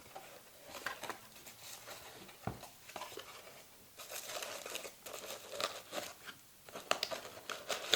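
Hands opening a product box and handling its packaging: crinkling and rustling with scattered small clicks and knocks.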